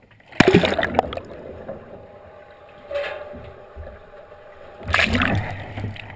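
Sea kayak capsizing with a loud splash about half a second in, then muffled gurgling of water heard from below the surface while the boat is upside down, and a second splash about five seconds in as the kayaker rolls back up with a forward-ending roll.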